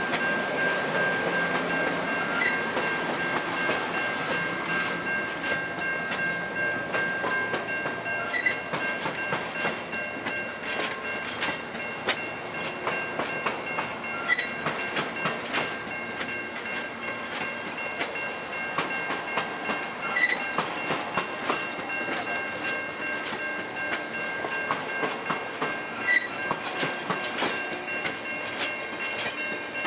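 Amtrak stainless-steel passenger cars rolling past close by, wheels clicking irregularly over the rail joints, over a steady high-pitched whine.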